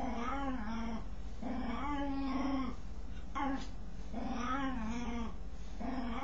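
A dog making long, wavering, moaning calls, about four in a row with short gaps, each lasting around a second: the strange noise it makes while scratching itself.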